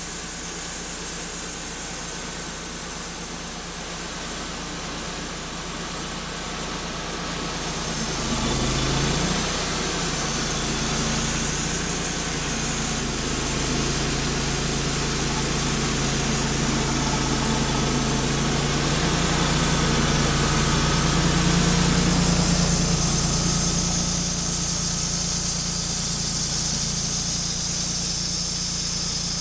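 Wood-Mizer LT35 portable sawmill's engine running steadily under load while the band saw cuts through a black walnut log, with a brief dip and recovery in engine pitch about eight seconds in.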